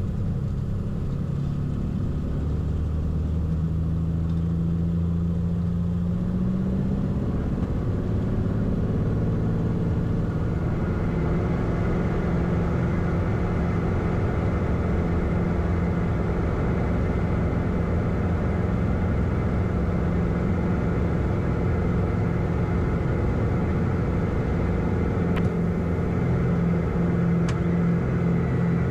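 Piper Malibu's turbocharged six-cylinder Continental engine and propeller at full takeoff power during the takeoff roll. The engine note climbs over the first six or seven seconds as power comes up, then holds steady.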